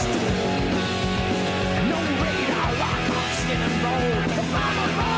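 Heavy metal rock music with electric guitars, playing steadily.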